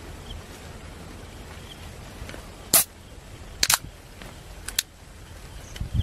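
Aluminium drink can opened by its ring-pull: one sharp pop about three seconds in, followed by two pairs of lighter clicks from the tab.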